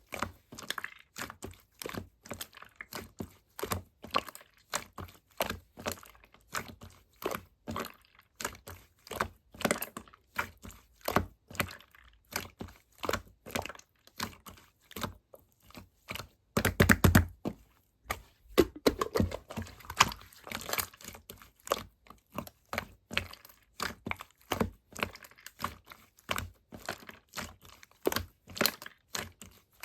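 A steady run of small clicks, taps and crinkling from objects being handled, about two or three a second, with a louder clatter about seventeen seconds in and a stretch of rustling just after.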